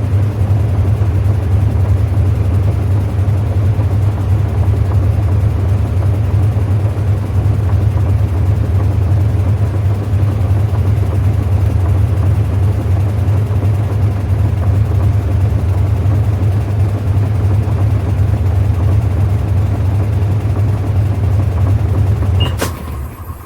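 Sharp ESS 119 washing machine on its spin cycle: a loud, steady motor hum with the rushing of the spinning tub. Near the end a click as it switches off, and the hum dies away quickly.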